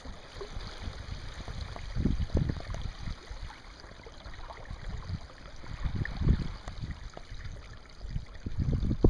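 Choppy river water lapping and trickling against the side of an open canoe as it sails before the wind, with irregular gusts of wind rumbling on the microphone, strongest about two seconds and six seconds in.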